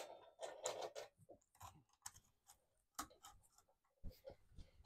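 Faint, irregular clicks and light metallic taps of saw chain links and the chain grinder's vise as the chain is repositioned and clamped by hand; the grinding wheel is not running.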